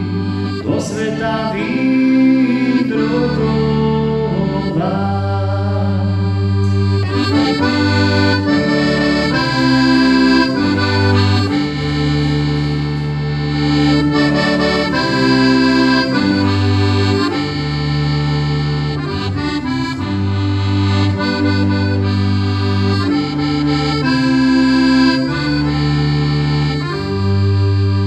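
Piano accordion playing an instrumental passage of a Slovak folk tune: a right-hand melody over held left-hand bass notes and chords.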